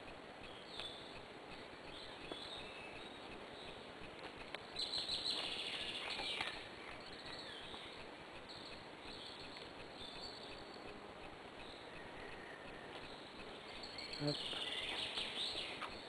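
Quiet rustling and scratching of a dry liana stem being wound by hand around the sticks of a basket frame, with two louder spells of rustling about five seconds in and near the end, over steady outdoor hiss and faint bird chirps.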